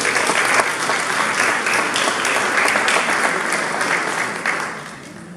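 Audience applauding, a dense patter of many hands clapping that fades away about five seconds in.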